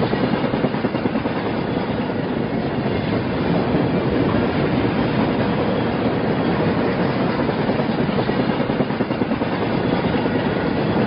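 HO scale model freight cars rolling steadily along the layout's track: a continuous rolling rumble of small metal wheels on rail.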